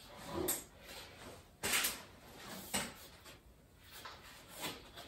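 A few light knocks and scrapes of a shop-light fixture being handled and shifted against the ceiling, the longest and loudest scrape a little under two seconds in.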